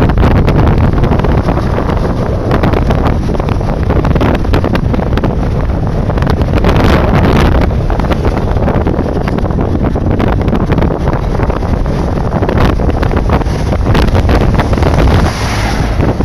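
Heavy wind buffeting the microphone of a phone carried in a moving vehicle: a steady low rumble with frequent crackles of gusts hitting the mic.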